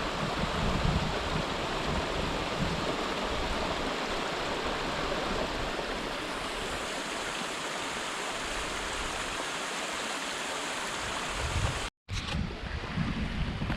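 A steady rushing hiss of wind. About twelve seconds in it cuts out for an instant, and after that gusts buffet the microphone with uneven low rumbles.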